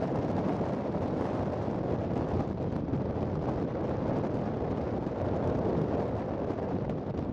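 Wind blowing across the microphone: a steady, unbroken low rush of noise.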